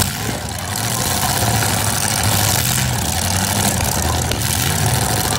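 Demolition derby cars' engines running and idling together, with a loud, steady rumble that swells and eases a little.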